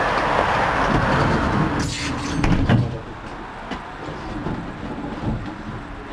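EGT6 tram running along the track, heard from the driver's cab: steady rolling noise with a low motor hum. A louder rattle comes about two to three seconds in, after which the running noise is quieter.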